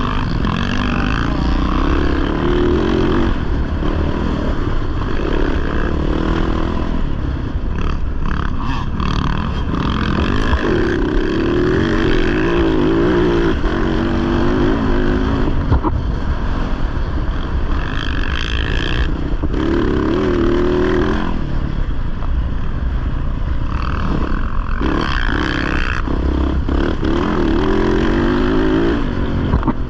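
Off-road racing motorcycle engine, heard from onboard, revving up and falling back again and again as the throttle opens and closes through the course.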